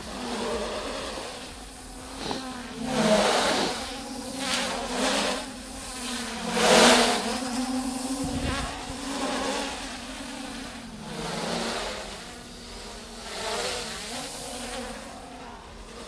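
Traxxas Aton quadcopter drone flying: a buzzing whine from its four propellers whose pitch rises and falls as it manoeuvres and swoops past, swelling loudest about three and seven seconds in.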